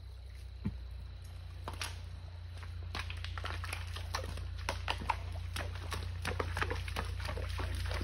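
Horse's hooves clacking on loose creek stones and splashing into shallow water as it walks off. The hoof clicks come thick and irregular from about three seconds in, over a low steady rumble.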